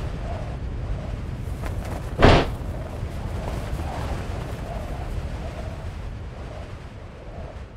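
Sound-effect descent rumble, like rushing air, with one sharp loud bang about two seconds in and a faint wavering whistle over it.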